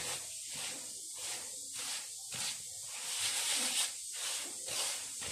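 Hands rubbing melted butter and oil into medium semolina in a wooden bowl: a gritty rustling hiss that comes in strokes, about two a second.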